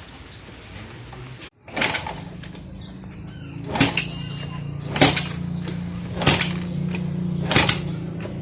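Sharp knocks repeating about every second and a quarter, one of them ringing like struck metal, over a steady low mechanical hum that starts about two seconds in.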